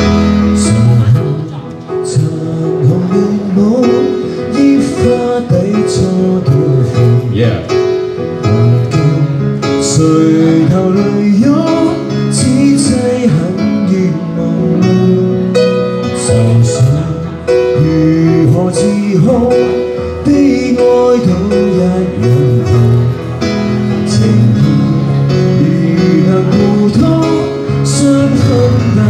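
A singer's live vocal over his own accompaniment on a Roland XV-88 electronic keyboard, held chords under the sung melody.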